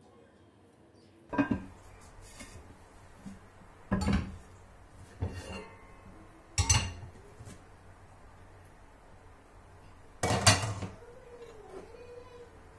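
Cookware clattering as pots, a frying pan and a bowl are handled and set down on a gas stove top: about five separate clanks a second or more apart, the loudest near the end.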